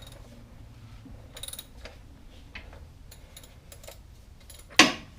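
Ratchet wrench on the front of a Porsche 944 four-cylinder engine clicking faintly as the engine is turned over by hand, the engine turning freely rather than seized. A sharp metal clank near the end.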